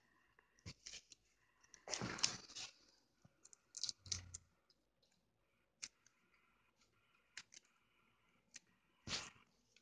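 Faint handling sounds of clear plastic pieces and a roll of clear tape on a tabletop: scattered small clicks and a few short rustling scrapes, the longest about two seconds in.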